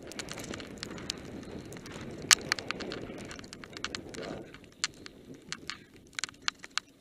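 Mountain bike descending fast over loose gravel: tyres rumbling steadily over the stones, with frequent irregular sharp clacks and rattles as the bike jolts over bumps, the loudest about two seconds in.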